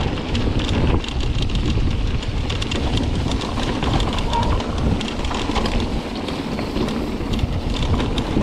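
Mountain bike riding along a packed-dirt forest trail: steady tyre rolling noise over dirt and small stones, with frequent small clicks and rattles from the bike, and wind buffeting the microphone.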